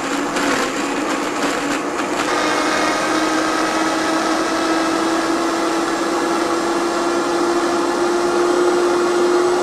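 Blender motor running at speed, blending soaked cashews, coconut meat and liquids into a cream. It sounds rough and gritty for the first two seconds or so, then settles into a steady whine whose pitch creeps slowly upward.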